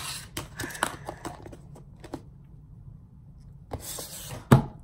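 Handling noises: a few light clicks and rustles, then after a lull a brief rustle and a single sharp knock near the end, the loudest sound here.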